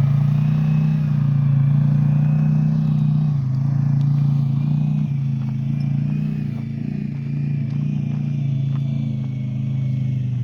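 An engine running steadily, a low hum that eases off a little about halfway through, with a faint high whine above it.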